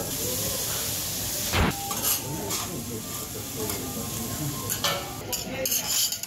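Fried rice sizzling on a flat steel griddle while metal spatulas scrape and tap across the plate, with a sharp clack about one and a half seconds in and a run of taps near the end.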